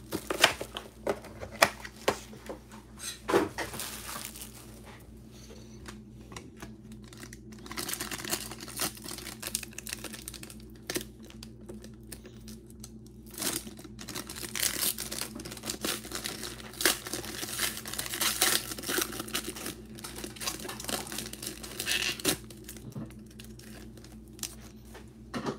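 Foil wrapper of a trading-card pack being torn open and crinkled by hand. Sharp crackles come in the first few seconds, then longer stretches of rustling crinkle as the foil is pulled apart.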